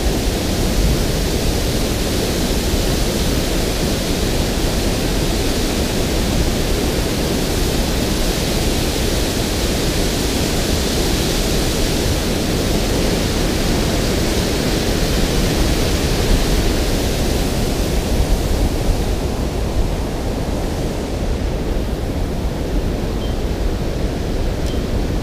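Water rushing over a dam spillway: a steady, loud noise.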